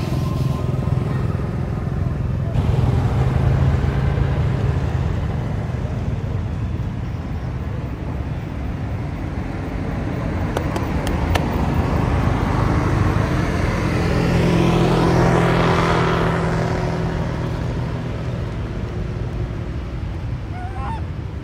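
Motor vehicle engines running nearby, a steady low hum that swells twice, the second time as a vehicle passes close about three-quarters of the way in.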